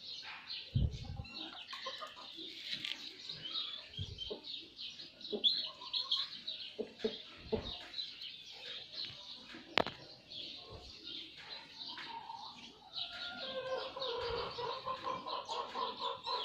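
Birds chirping, many quick high chirps throughout, joined by lower, steadier calls in the last few seconds. A few soft low thumps and one sharp click are mixed in.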